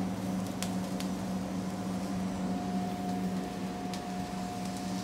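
Steady hum of a commercial kitchen's gas charbroiler and exhaust hood, with a faint steady whine joining about halfway through. A few light clicks from metal tongs setting broccolini on the grill grates.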